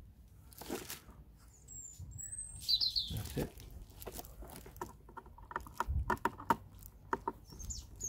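Scattered small clicks and taps of a screwdriver working the wire terminal screws of a small solar charge controller, with a couple of birds chirping in the first half.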